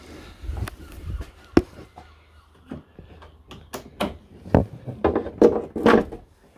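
Car bonnet being propped open: scattered clicks and knocks of the metal bonnet prop rod being handled and seated in its hole in the bonnet, with a sharp knock about a second and a half in and several more near the end.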